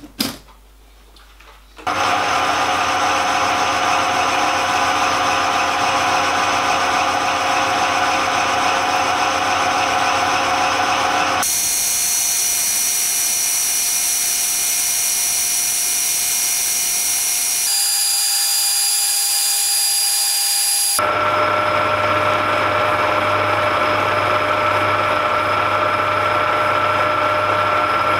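Metal lathe running with a four-jaw chuck spinning a driving-wheel blank while the tool takes a half-millimetre facing cut across it. It is a steady machine hum and whine that starts about two seconds in, and its tone shifts suddenly a few times.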